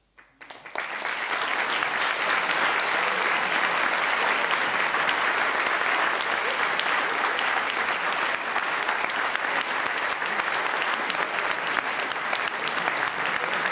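Concert audience applauding at the end of a piece: a few scattered claps out of silence, quickly swelling within the first second into full, steady applause.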